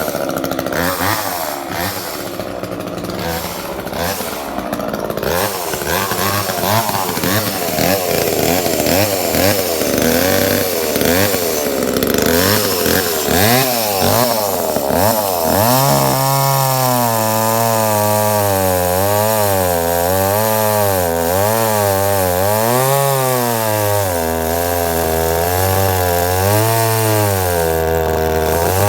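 Gas chainsaw running: revved up and down repeatedly at first, then from about halfway it drops to a lower, steadier pitch that wavers slowly as the chain works through wood under load.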